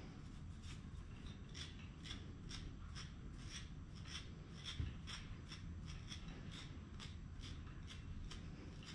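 Hand-stripping of a West Highland white terrier puppy's coat: short raspy swishes about two a second as tufts of soft puppy hair are pulled out in quick strokes. A low steady hum underneath, and one soft thump about five seconds in.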